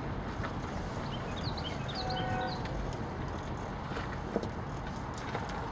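Steady outdoor background noise, with a small bird chirping a quick run of short, high, rising notes between about one and three seconds in.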